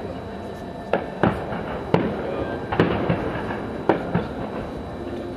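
Distant aerial firework shells bursting, about six sharp bangs spread irregularly over five seconds, each trailing off in a short echo.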